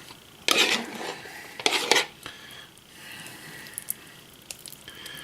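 Metal spoon scraping the last of the canned chili out of its can, two short scrapes about half a second and nearly two seconds in, followed by softer spreading and small clinks.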